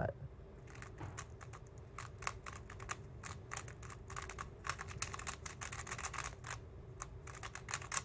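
Bluetooth Rubik's cube being speed-solved: rapid, irregular clicking and clacking of its plastic layers turning under the fingers, in fast flurries that start about a second in and stop just before the end.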